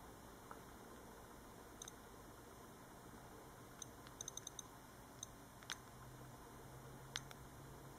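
iPod nano 4th-generation click wheel ticking as the menus are scrolled: single clicks now and then, a quick run of about five clicks about halfway through, and two sharper clicks in the second half.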